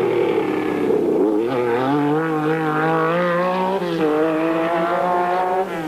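Rally car engine running hard, its note dropping and climbing again a couple of times with throttle and gear changes.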